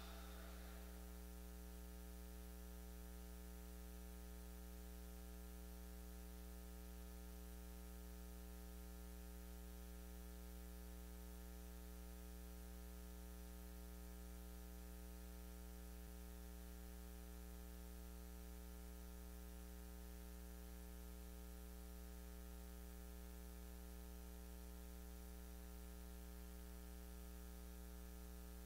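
Faint, steady electrical mains hum: a low buzz with a stack of higher overtones over a faint hiss, unchanging throughout.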